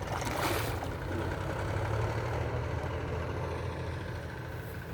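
An engine running steadily at low revs, a constant low hum. About half a second in there is a brief noisy burst.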